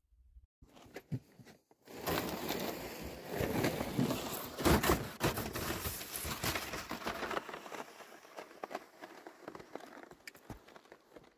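Loaded plastic ice-fishing sled sliding down a snowy slope, its hull scraping over the snow with a rough, crackling noise that starts about two seconds in and fades as the sled slides away.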